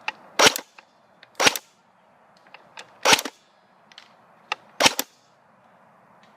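Airsoft gun firing four single shots at uneven spacing, each a loud sharp crack, with fainter clicks in between.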